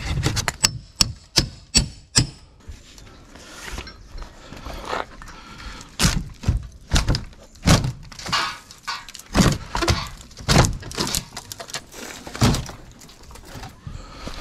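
Rotten, termite-damaged wooden rim joist and framing being torn out by hand: a quick run of sharp cracks in the first two seconds, then irregular wooden knocks and splintering.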